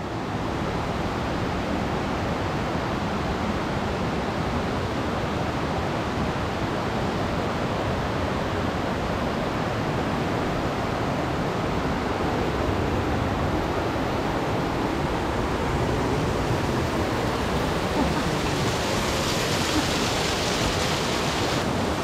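Waterfall and mountain stream in heavy flood flow, a steady dense rush of water. The hiss grows brighter for the last few seconds.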